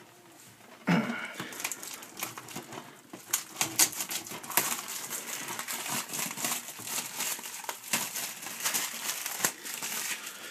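Plastic shrink-wrap being torn and peeled off a DVD case: irregular crinkling and crackling with many sharp snaps, starting about a second in.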